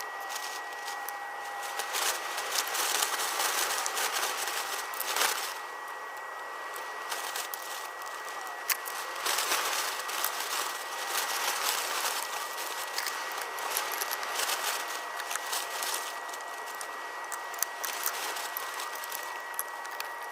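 Sears pressurized liquid-fuel lantern burning with a steady hiss, with small clicks and rattles of metal parts being handled.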